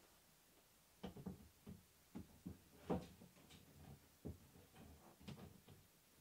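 Light, irregular knocks and clinks of a black metal wire basket being handled and positioned against the wall, a dozen or so after about a second of quiet, the loudest about three seconds in.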